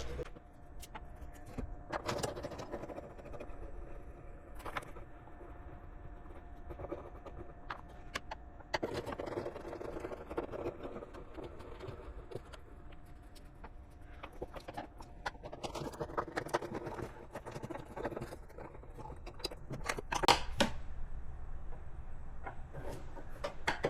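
Light clicks, taps and scrapes of a Phillips screwdriver backing out the screws around a plastic car airbox lid, with scattered sharper clicks as the screws are handled.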